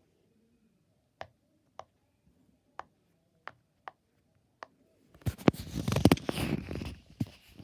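Silicone pop it fidget toy being pressed, its bubbles giving short separate pops about every half second to a second. About five seconds in, a quick, louder flurry of pops and scratchy rubbing on the silicone, then sparser pops again.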